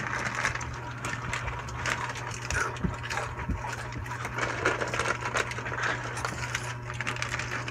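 Snack eating: plastic chip bags crinkling as they are handled and chips crunching, in irregular crackly clicks, over a steady low hum.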